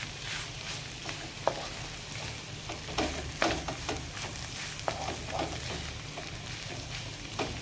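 Wooden spatula scraping and knocking against a metal kadhai in irregular strokes as boiled radish is stirred into the masala, over a steady sizzle of frying spices.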